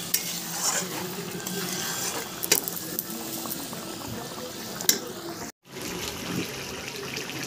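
Egg curry gravy boiling in a kadhai, a steady bubbling with a couple of sharp clicks, one about two and a half seconds in and another near five seconds. The sound cuts out briefly about five and a half seconds in.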